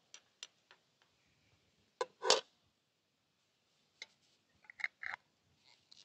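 Metal spoon clinking and scraping against a glass jar as watermelon marmalade is spooned in: scattered light clicks, the loudest a double clink about two seconds in and a small cluster of clicks about a second before the end.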